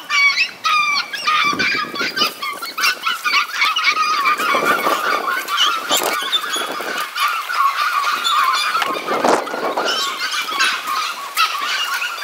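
A pack of beagles baying on a rabbit's trail, many voices overlapping without a break, played fast-forward so the calls come out quick and high-pitched.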